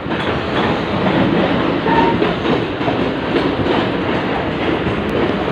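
Moving electric train heard from its open doorway: a steady, loud running noise of the wheels on the track and the rattling carriage.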